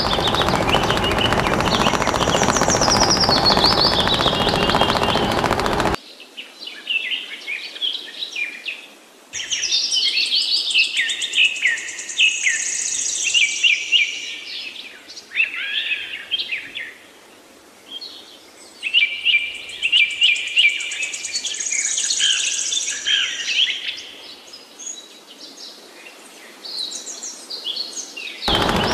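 Background music for the first few seconds, then songbirds singing: quick chirping and trilling phrases repeated over and over, with short pauses between bouts. The music comes back at the very end.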